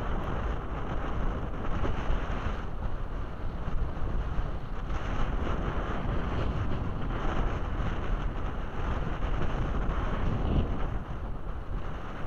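Strong wind buffeting the microphone in gusts, with choppy bay water splashing and lapping around a wading angler.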